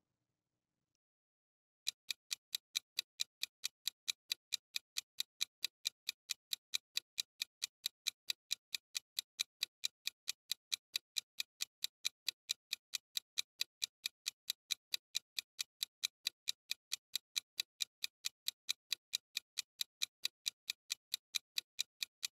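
Ticking clock sound effect for a countdown timer: even, rapid ticks that start about two seconds in and keep a steady pace and level.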